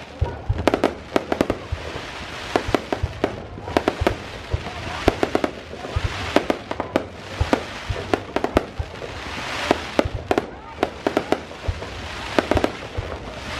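Aerial fireworks display: rapid volleys of sharp bangs and pops, with a hissing crackle that swells about every four seconds.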